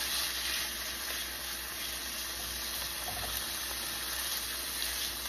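Thin beef slices frying in oil in a pan, a steady sizzle.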